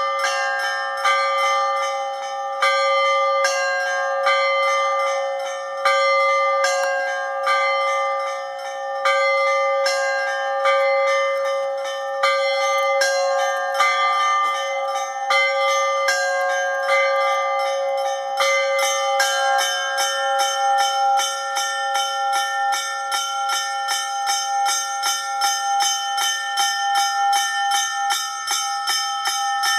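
Russian Orthodox church bells being rung together: a lower bell's tone hums on steadily under repeated quick strikes of smaller bells in a rhythmic pattern. About two thirds of the way through, the small-bell strikes become faster and more even, and the low hum fades near the end.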